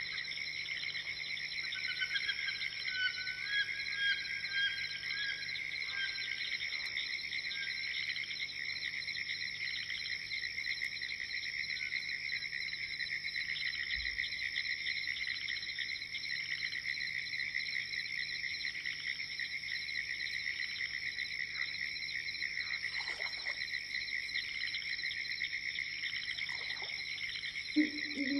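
Swamp dawn chorus: a dense, steady pulsing chorus of frogs and insects, with a few short whistled bird calls a few seconds in. Near the end an owl starts hooting.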